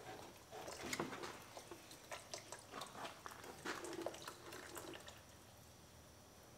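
Faint wet squishes and clicks of a rubber radiator hose being worked off and handled, with coolant dripping; the handling stops about five seconds in.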